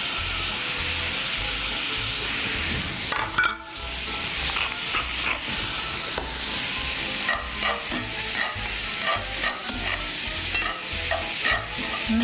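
Shrimp, red peppers and garlic frying in bacon fat in a cast iron skillet: a steady sizzling hiss that dips briefly about three and a half seconds in. In the second half, metal tongs click and scrape against the pan as the shrimp are turned.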